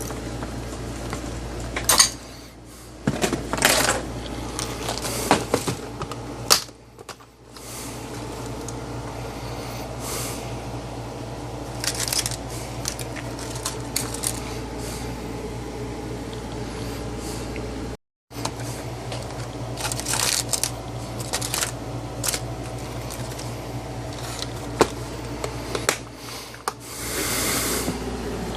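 Small objects being handled on a workbench: scattered clicks, knocks and short rustles over a steady low hum, with the sound cutting out completely for a moment about two-thirds of the way through.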